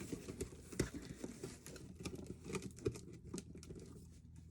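Quiet, irregular small clicks, taps and light rustling of things being handled, typical of sorting through unboxed paracord hanks and their packaging.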